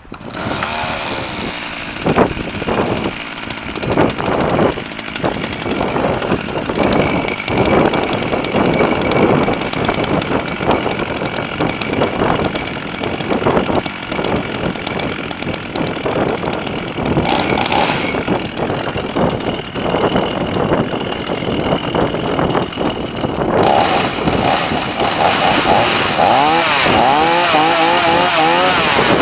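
Husqvarna 44 two-stroke chainsaw engine catching right at the start and then running steadily. It gives a brief blip of throttle about two-thirds of the way through. Near the end it is revved up and down repeatedly, spinning the chain.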